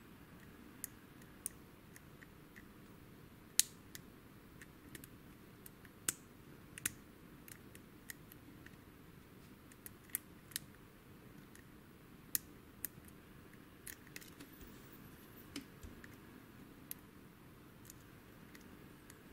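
Scattered small metallic clicks and ticks of a lock pick working the pins of a WILKA pin-tumbler euro cylinder with security pins, at an uneven pace, with one sharper click about three and a half seconds in.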